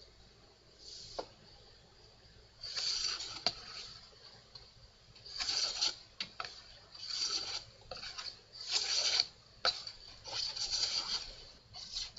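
Hand plane cutting wood in repeated strokes, about six in a row, each a short scraping cut lasting under a second, with a few sharp clicks between strokes.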